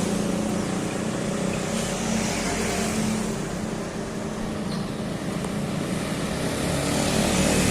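Large bus diesel engine idling steadily, a constant low hum with street traffic noise around it, growing a little louder near the end.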